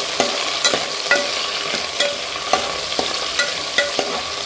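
Sliced onions frying in hot oil and ghee in a pot with a steady sizzle, stirred with a wooden spatula that knocks and scrapes against the pot about twice a second.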